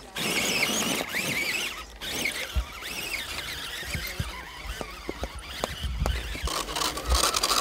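High-pitched whine of a 1/10-scale electric RC trail truck's motor and gears, wavering up and down in pitch as the throttle is worked, with a few dull low thumps in the second half.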